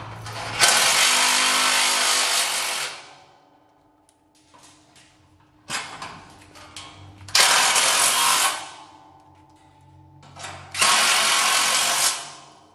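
DeWalt cordless impact driver driving bolts into galvanized steel channel: three bursts of loud rattling hammering, the first and longest about half a second in, the others shortly past the middle and near the end, each led in by a brief softer whir.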